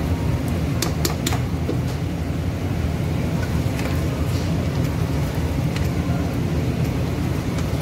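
A metal slotted spoon stirring chicken korma in a non-stick pan, clinking sharply against the pan a few times about a second in and lightly now and then after, over a steady low hum.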